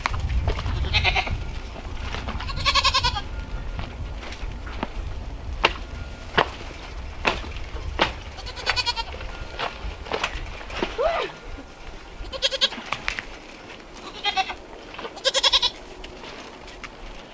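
Nigerian Dwarf goats bleating, about six short calls spread through, with several sharp knocks or clicks in between.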